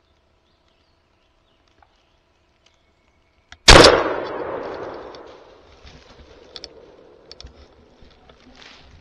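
A single shotgun blast from a Franchi Affinity 3 Elite about three and a half seconds in, its report echoing and dying away over a second or two. Scattered small knocks and rustles follow as the shooter moves.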